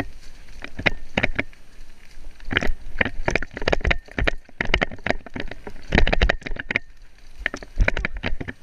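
Mountain bike clattering along a rough dirt trail: an irregular run of sharp knocks, crunches and rattles, several a second.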